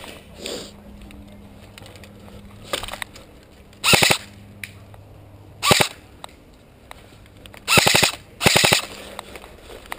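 Airsoft rifle firing short full-auto bursts of rapid, evenly spaced shots: four loud bursts between about 4 and 9 seconds in, each lasting under half a second, with a fainter one a little before.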